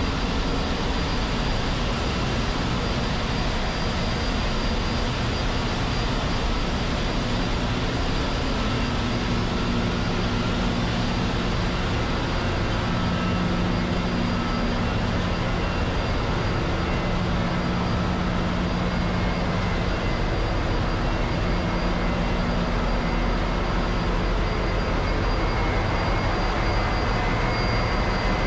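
Steady, loud machinery din of a running ship's engine room: diesel engines, pumps and electric motors all going at once, with a low hum that swells for a while midway and a thin high whine throughout.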